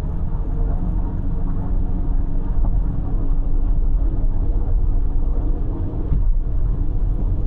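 Steady road and engine rumble heard inside a car cabin cruising on an expressway, with a faint constant drone.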